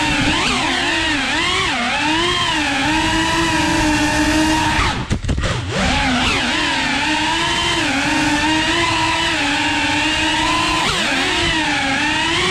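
FPV quadcopter's brushless motors and propellers whining, the pitch rising and falling with the throttle. About five seconds in the throttle drops briefly, the whine sweeping down and dipping in level before climbing back.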